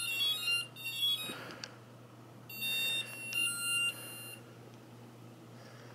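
Electronic beep tones from a hexacopter's speed controllers and flight electronics during ESC throttle calibration. There is a quick run of short high beeps at the start, then a longer series of beeps from about two and a half seconds in.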